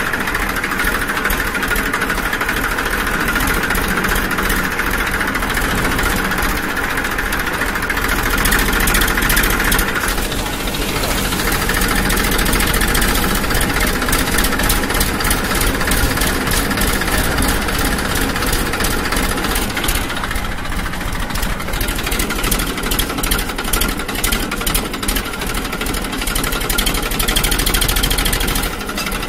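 A motor running steadily and loudly, with brief changes about a third and two-thirds of the way through.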